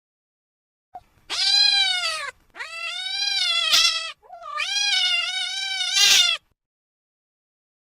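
Domestic cat meowing: three long, drawn-out meows, each rising then falling in pitch, starting about a second in, the last the longest.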